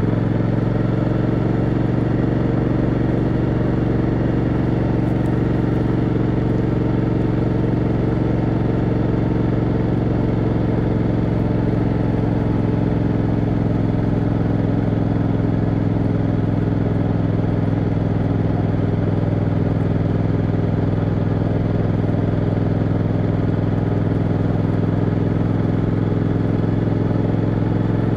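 Motorcycle engine running at a steady, unchanging pace in third gear while cruising at a low constant speed, with no revving or gear changes.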